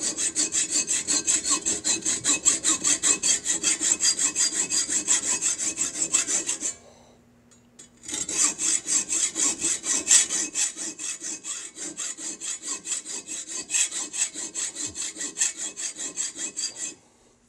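Hand hacksaw cutting through a metal workpiece held in a lathe chuck, in quick, even back-and-forth strokes. The sawing pauses for about a second and a half partway through, then resumes and stops just before the end.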